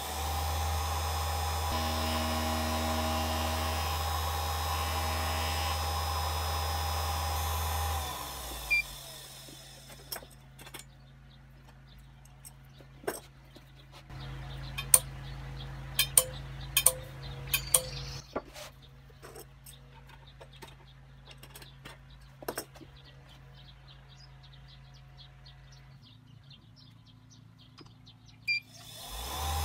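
Treadmill DC motor, fed from a pulse-width-modulated speed controller, spinning an end mill with a steady hum, then switched off about eight seconds in and spinning down. After that only a low hum remains, with a run of sharp clicks and taps from handling the lathe and milling setup.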